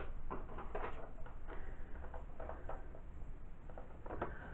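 Light handling noise: an eyeshadow stick and a spiral notebook being picked up and moved about, with irregular soft taps, clicks and paper rustles.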